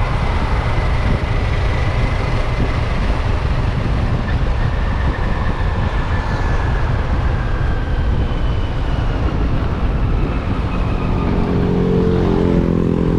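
Motorcycle on the move with heavy wind rush on the microphone over the engine. About two seconds before the end, an engine note comes up more clearly.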